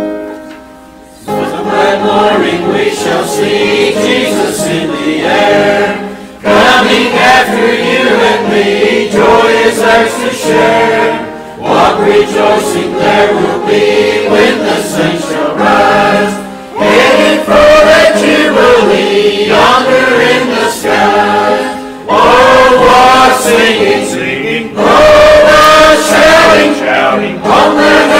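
Mixed church choir of men and women singing a gospel hymn, beginning about a second in and going on in sung phrases a few seconds long with short breaths between them.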